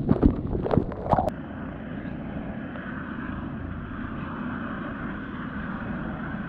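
Sea water splashing and buffeting against an action camera in the surf, with sharp knocks. About a second in it changes abruptly to a steady, muffled rushing rumble of water.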